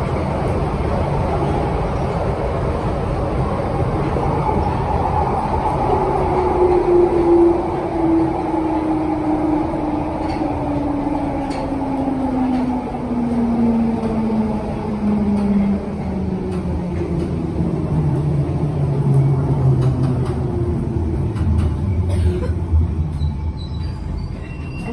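London Underground 1972 Stock tube train running and slowing down: a steady rumble of wheels on track, with a motor whine that falls steadily in pitch over about fifteen seconds as the train loses speed.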